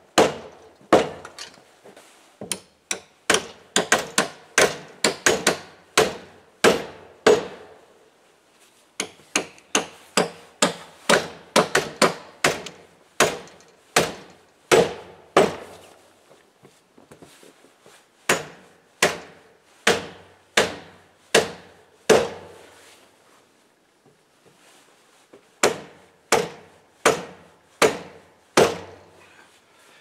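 Hammer blows on a wooden sled frame, in runs of steady strikes about two a second, with a few short pauses between runs.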